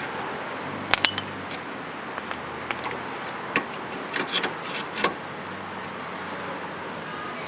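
Scattered light metallic clinks and clanks of tools and brake parts being handled at a car's bare wheel hub, the sharpest about a second in, over a steady low hum.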